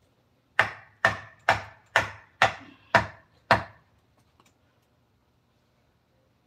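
Mallet striking a wood-carving chisel: seven sharp blows about two a second, then they stop.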